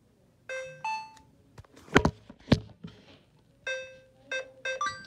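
Maytag washer's control panel sounding electronic chimes: a two-note beep about half a second in, and near the end a quick run of short beeps like a start tune. Between them come two sharp clunks.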